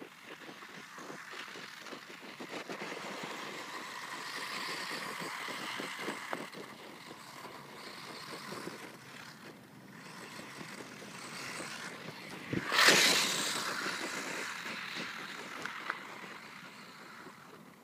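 Brushless electric motor and tyres of an HPI Savage XS Flux radio-controlled truck driving on muddy dirt. The sound swells and fades as it races about, with a loud surge about thirteen seconds in.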